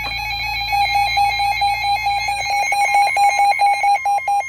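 Several NOAA weather alert radios sounding their alarms together: rapid electronic beeping from overlapping radios, with a steady alert tone joining about halfway through as the beeping grows louder.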